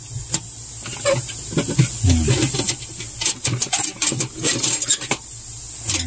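Light clicks, taps and scraping as a refrigerator's defrost heater tube is handled and pushed back into its mounting clips under the evaporator coil, over a faint steady hiss.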